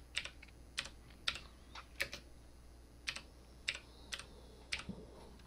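Slow typing on a computer keyboard: about a dozen separate key clicks, unevenly spaced, as a short command is typed.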